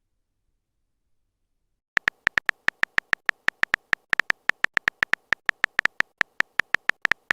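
Phone keyboard typing sound effect: a fast run of short clicky beeps, about six a second, starting about two seconds in after silence.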